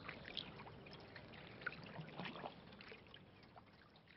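Faint ambient water sound: gentle lapping and trickling with small scattered splashes, slowly fading out.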